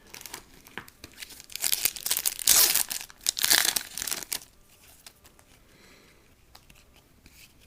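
A trading-card pack wrapper being torn open and crinkled for about three seconds, loudest in the middle, followed by faint light handling clicks as the cards are slid out.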